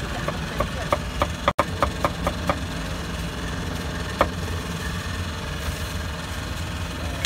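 A cleaver chopping meat on a wooden block: about ten quick, sharp knocks in the first two and a half seconds, then a single knock about four seconds in. A steady low engine rumble runs underneath.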